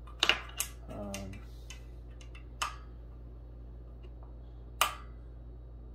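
A handful of sharp, irregular clicks and taps as a part is fitted by hand onto a desk's underside frame, the loudest about a second before the end.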